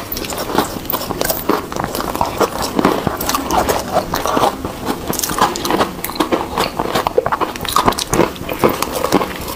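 Close-miked biting and chewing of soft, crumbly ice: a dense, continuous run of fine crunches and crackles. The sounds of two eaters are layered together.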